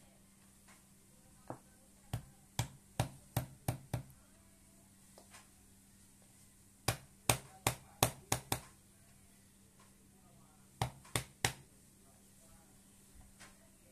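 Sharp knocks in three quick runs of four to six strikes each, a few tenths of a second apart, over a faint steady hum.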